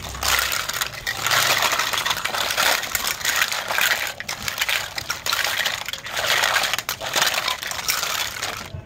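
Hollow plastic toy fruits and vegetables clattering and rattling against one another as the heap is shuffled around, a dense run of small plastic knocks with a few brief pauses.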